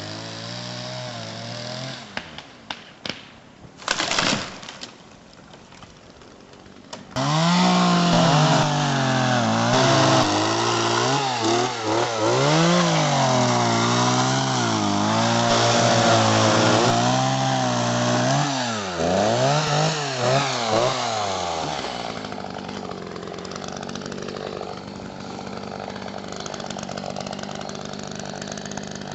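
Chainsaw running: a steady idle with a few knocks, then about seven seconds in it is revved and cuts into the base of a dead ponderosa pine trunk, its pitch rising and falling under load for about fifteen seconds, before dropping back to a quieter, steady run.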